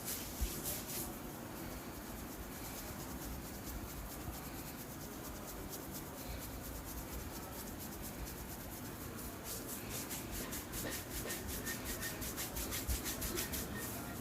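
Oiled hands rubbing over the scalp and skin in a massage. The steady rubbing turns into quick, even strokes, several a second, for the last few seconds.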